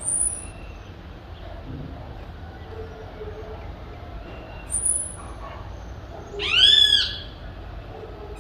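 Birds calling over a steady low hum of background city noise: a short, very high rising note repeats every four to five seconds, and one louder arched call with a rising-then-falling pitch comes near the end.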